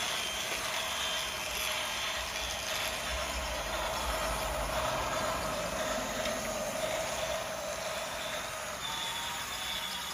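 Battery-powered toy steam train running, its small motor and plastic gears whirring steadily.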